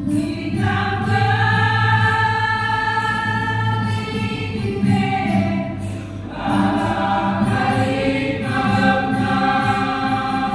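Church choir singing a hymn in sustained chords, with a brief break between phrases about six seconds in.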